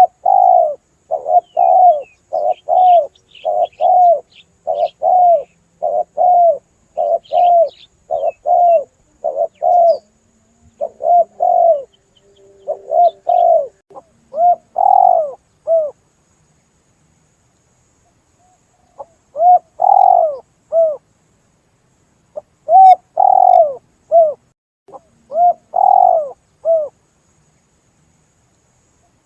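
Spotted dove (tekukur) cooing as a hunting lure call: a long run of repeated low coos, several a second, that stops for a few seconds past the middle and then resumes in shorter groups. Faint high chirps of small birds sound during the first third.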